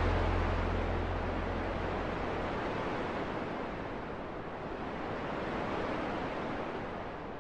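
Song outro: a steady wash of noise like surf or wind, with a low bass note dying away in the first two seconds, the whole slowly fading out.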